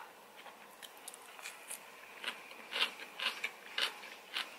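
Close-up chewing of crisp salad, a run of soft crunches about twice a second in the second half.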